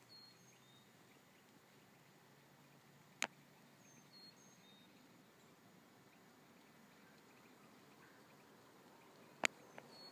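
Near silence, broken by three sharp clicks and by faint short high chirps of a distant small bird, repeating every few seconds.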